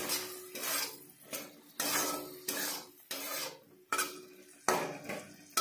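Metal spatula scraping and stirring through capsicum and masala in a wok, in repeated strokes roughly once a second, with a light sizzle of frying underneath.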